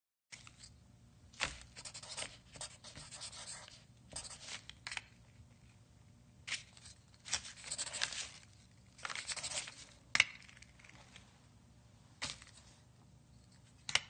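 Pencil writing on paper: irregular bursts of scratchy strokes with short pauses between them, and a few sharp ticks, the loudest about ten seconds in.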